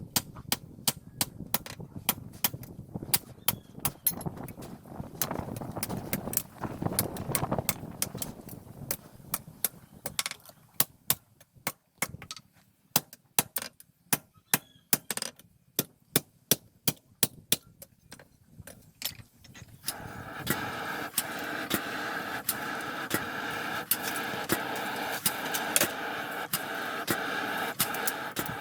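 Hammer blows on metal, about three a second, with short pauses, as steel is forged. About two-thirds of the way in, a steady whirring machine sound starts and runs under the blows.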